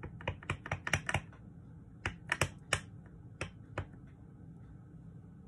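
A clear acrylic stamp block tapped repeatedly onto a Memento black ink pad to ink a ghost stamp: light plastic clicks, a quick run of them in the first second or so, then a few more spaced taps.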